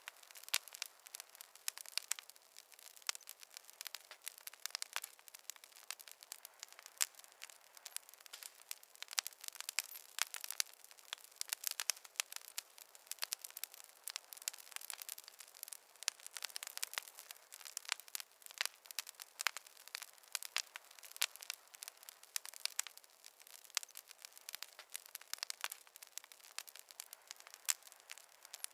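Wood fire crackling in a fireplace: a constant run of small irregular pops and snaps over a faint hiss, with no low rumble of flames.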